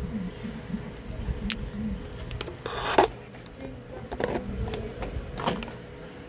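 Small hand tools handled at an electronics repair bench: a few sharp light clicks and taps, with one short rasping scrape about three seconds in as the loudest sound.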